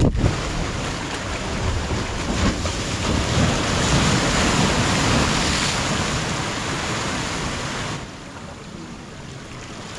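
Sea surf washing in over shore rocks, a steady rushing noise with wind on the microphone. It swells through the middle and drops suddenly lower about eight seconds in.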